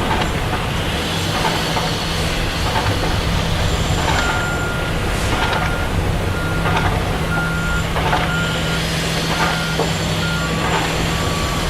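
Heavy construction machinery running with a steady engine hum and scattered metallic clanks; from about four seconds in a reversing alarm beeps over it, and a second, lower-pitched reversing alarm starts near the end.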